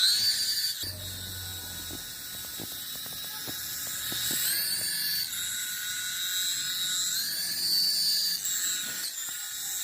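High-pitched whine of a toy remote-control helicopter's small electric motors and rotors, its pitch rising and falling a few times as the speed changes.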